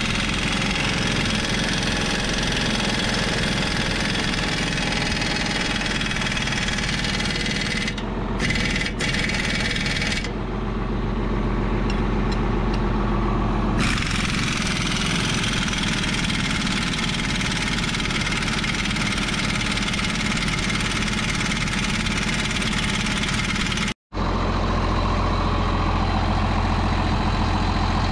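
Impact wrench running in long bursts on the dozer blade's mounting bolts over a steadily idling tractor diesel. The wrench stops from about 10 to 14 s and again after a cut near the end, leaving only the engine's low, even idle.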